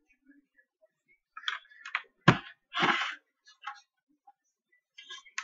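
A few light clicks, then a single sharp knock a little over two seconds in, followed by a short rustling noise and a couple of faint clicks: someone handling things on a table.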